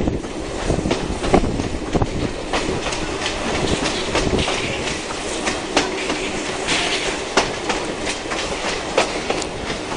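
Heritage passenger carriages of a steam-hauled train rolling along, their steel wheels clicking irregularly over the rail joints under a steady rumble of running noise.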